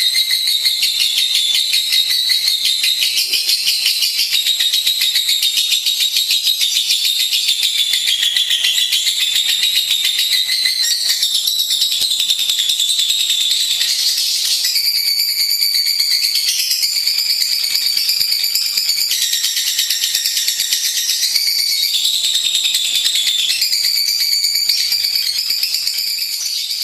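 Lovebird singing a long, unbroken high-pitched chattering trill of very rapid repeated notes, its pitch stepping up and down every second or two; it fades near the end.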